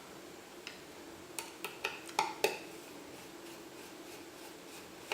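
Light clicks and taps of small hard computer parts being handled, about six in quick succession in the first half and one more near the end, over a faint steady hum.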